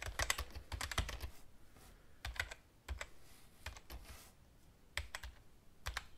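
Computer keyboard typing: quick runs of key clicks in irregular clusters, with short pauses between them.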